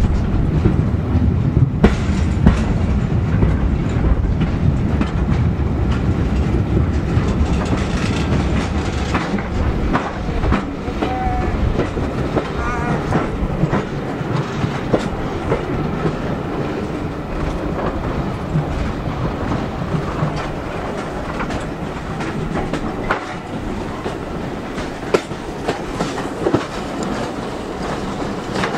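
Steam-hauled heritage passenger coaches running along the track, heard from on board: a steady rumble with the clickety-clack of the wheels over the rail joints. The rumble eases a little after about ten seconds.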